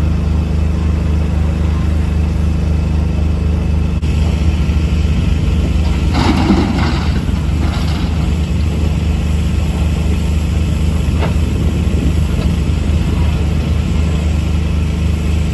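Diesel engines of excavators and dump trucks running steadily. About six seconds in, a two-second rush of rock and soil tumbling down the slope from an excavator's bucket.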